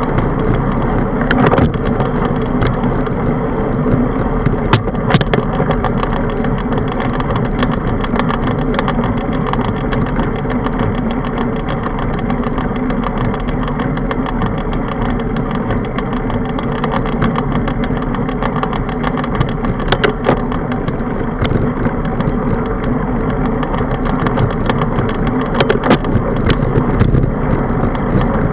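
Steady wind noise over the microphone of a handlebar-mounted camera on a bicycle riding along a paved road, mixed with road noise, and a few sharp clicks and rattles from bumps.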